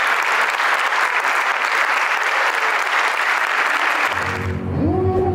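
Audience applauding steadily for about four seconds, then it cuts off and outro music takes over: a low steady drone with gliding tones that rise and level off.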